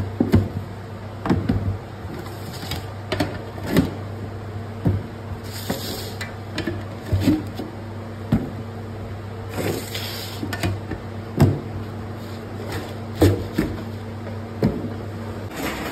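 Metal bread loaf tins knocking and clattering against a worktop as they are handled and set down, a dozen or so sharp knocks at irregular intervals, over a steady low hum that stops near the end.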